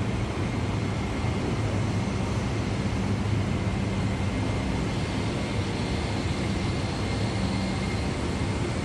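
Steady rushing air and low hum of a parked Boeing 777's cabin ventilation and systems, with a faint steady high tone running through it.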